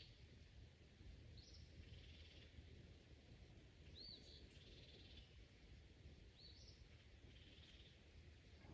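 Faint bird calls, repeated about three times: each is a short arched note followed by a buzzy note, coming roughly every two and a half seconds over a faint low rumble in otherwise near-quiet woods.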